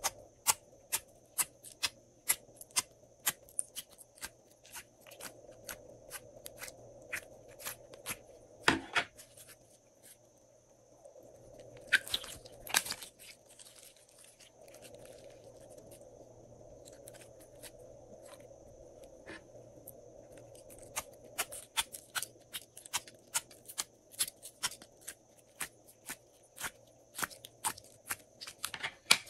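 Glossy slime being pressed out of a plastic cube-shaped mold and stretched, making a run of sharp sticky clicks and pops about two a second, with a few louder snaps in the middle and a quieter stretch between.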